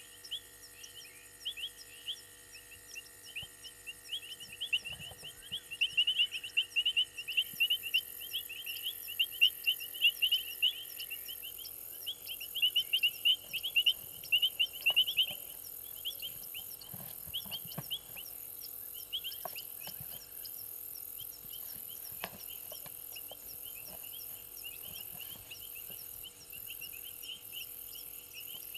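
Night chorus of frogs and insects: a dense, rhythmic stream of rapid high chirps, loudest in the first half, with a steady, evenly pulsing high trill joining in about seven seconds in. A few faint low knocks and rustles come in between.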